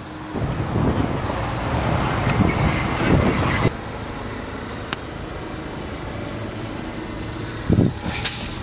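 Car engine and road noise heard from inside the cabin as the car drives, louder and uneven for the first three and a half seconds, then dropping to a steadier hum, with a brief thump near the end.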